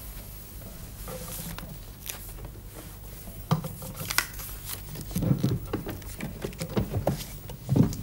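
Handling noises at a bedside cabinet: a run of light knocks, clicks and rustles, densest in the second half, over a low steady hum.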